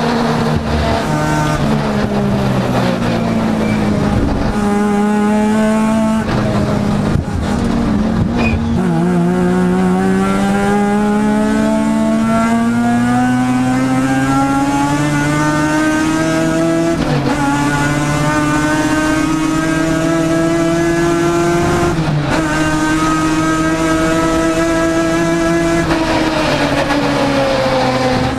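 Mazda RX7 race car's rotary engine heard from inside the cabin: slowing with downshifts in the first several seconds, then pulling hard with the pitch climbing steadily, dropping at two upshifts, and falling again as the car slows near the end.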